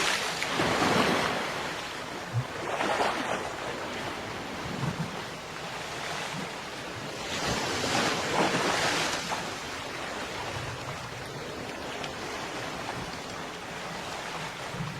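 Ocean waves breaking on a beach: a steady wash of surf that swells as waves roll in, loudest near the start and again about eight seconds in.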